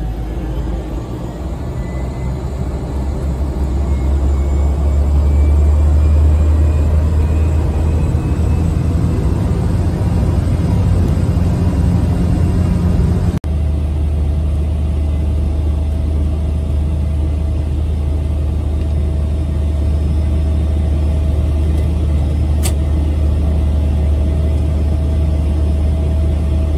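Small passenger aircraft's engine running, heard from inside the cabin as a loud, steady low drone that swells over the first few seconds, with a faint steady whine above it. The sound drops out for an instant about halfway through.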